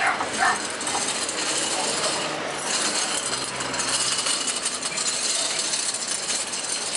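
Steady loud noise of a busy shop's ambience with scattered light clicks, and a couple of short high rising squeaks near the start.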